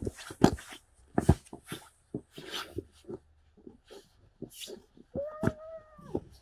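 Winter boots stepping and scuffing on a wet driveway and packed snow, a string of sharp steps at an uneven pace. About five seconds in, a single high, drawn-out call lasts about a second.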